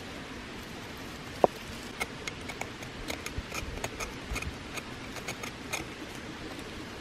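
A knife blade scraping bark tinder on the ground: a run of short, dry scrapes and clicks, several a second, with one sharp knock about a second and a half in.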